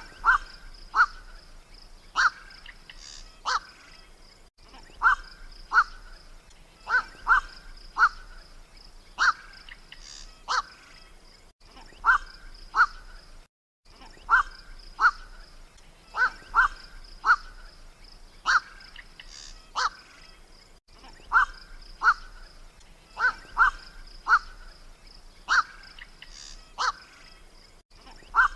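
Black-crowned night heron (koak) giving harsh, short 'kwok' croaks, about one a second and often in pairs, played as a hunting lure call. A steady high thin whine runs behind the calls.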